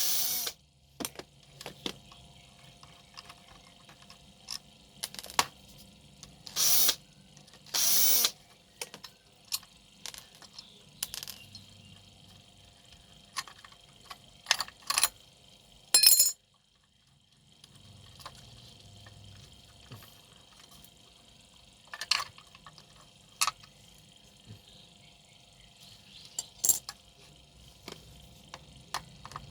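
An electric hand planer being taken apart: a few short bursts from a power driver undoing screws, with many clicks and knocks of metal tools and parts being handled in between.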